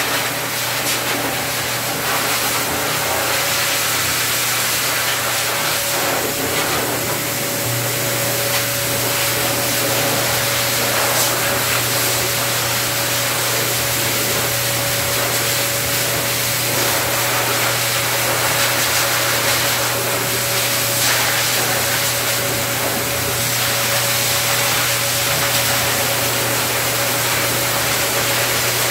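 A hose-type pet grooming dryer blowing steadily, a loud rush of air over a constant motor hum and whine, as it dries a dog's curly coat.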